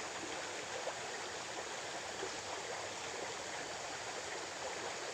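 Small stream running steadily, an even rush of flowing water.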